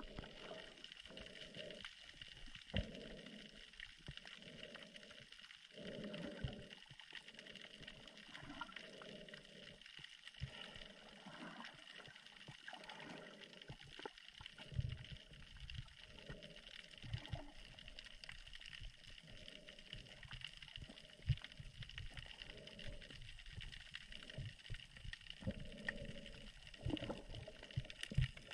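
Faint muffled underwater sound picked up by a camera below the surface while snorkeling: soft gurgling water movement, broken into short dull pulses about once a second, over a steady faint hiss.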